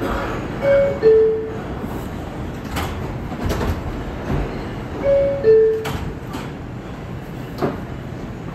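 R142 subway car's door-closing chime, a two-note falling ding-dong that warns the doors are closing. It sounds twice, about a second in and again about five seconds in, over the train's steady hum, with a few knocks in between.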